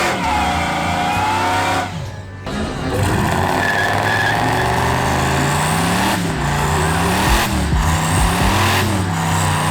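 Truck engine revving hard over a tyre squeal in a burnout. The engine pitch rises and falls about once a second in the second half.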